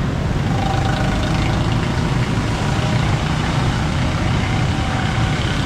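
Road traffic: vehicle engines running steadily, with a dense low rumble.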